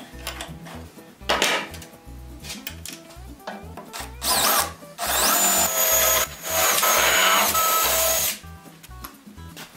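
Cordless drill boring holes into a wooden panel: a short spin-up with a rising whine about four seconds in, then two longer steady runs with a brief break between them, stopping a little after eight seconds.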